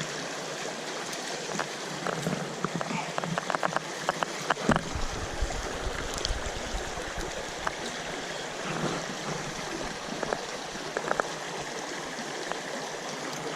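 Small stream running and gurgling over its bed, a steady rush of water, with a quick run of light clicks about three to five seconds in.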